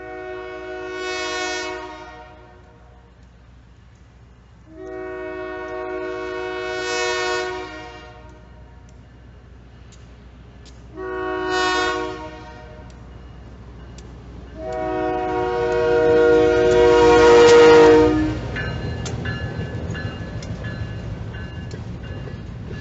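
Diesel locomotive horn on an EMD SW1500 switcher sounding the grade-crossing signal: two long blasts, a short one, and a final long blast that is the loudest. Then the freight cars roll by with a steady rumble and scattered wheel clicks.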